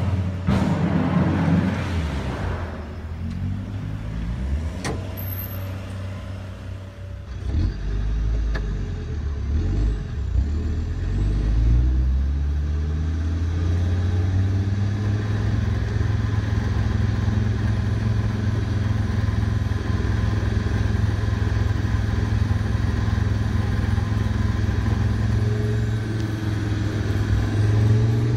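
A vehicle motor running with a low rumble, changing pitch for the first several seconds, then running steadily from about eight seconds in.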